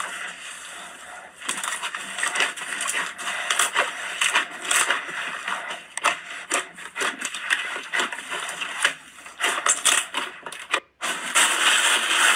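Slime being squeezed and worked by hand, giving a dense run of irregular crackling and popping clicks. It cuts out for a moment near the end, then a steadier, louder crackling follows.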